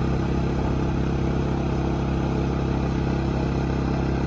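A vehicle engine running steadily at an unchanging speed, a constant hum with no revving.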